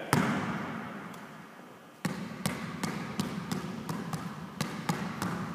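Basketball bouncing on a court in a behind-the-back dribble, the ball snapped back and forth behind the player's back. One loud bounce near the start dies away over about two seconds, then quick regular bounces follow at about three a second.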